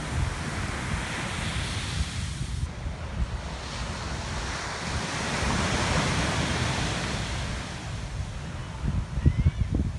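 Small waves breaking and washing up on a sandy beach, with wind buffeting the microphone. The surf swells louder around the middle, and a few strong gusts hit the microphone near the end.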